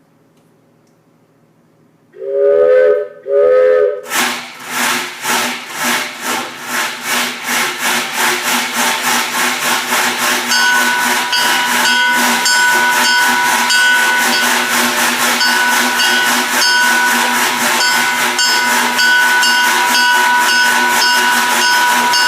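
Ludwig & Ludwig train imitation effects: two short blasts on a Ludwig & Ludwig 4-in-1 train whistle, several tones sounding together, then a steam-locomotive chuffing that starts slow and speeds up until it runs as a fast, steady chug. Steady high tones sound over the chugging from about halfway.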